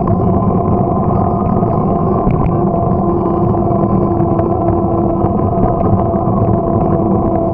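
A bike underway at a steady speed: an even drone with a constant-pitched hum over a low rumble, the pitch holding level throughout.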